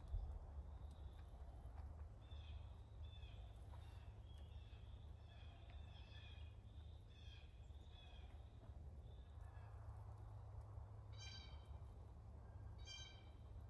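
Birds calling faintly: a run of high chirping notes, then three short, harsh calls near the end, over a steady low rumble.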